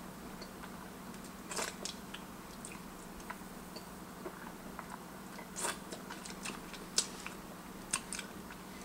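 Mouth sounds of someone tasting a lollipop: scattered wet clicks and smacks as the candy is licked and sucked. A faint steady hum sits underneath.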